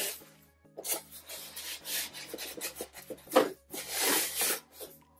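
Cardboard rubbing and scraping in several short scuffing strokes as a brown cardboard mail-away box is handled and opened, the longest stroke near the end.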